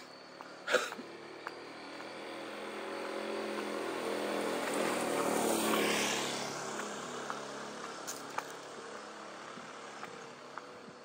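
A motor vehicle passes, its engine swelling over several seconds to a peak near the middle and then fading away. A sharp knock sounds about a second in, with light footstep ticks.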